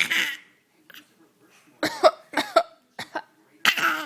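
Short put-on coughs mimicked on cue: one cough at the start, a quick run of high-pitched voiced cough sounds about two seconds in, and another cough near the end.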